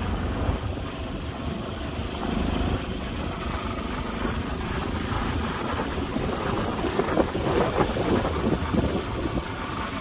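Motorcycle engine running as the bike rides along a rough lane, heard from on board as a steady low rumble.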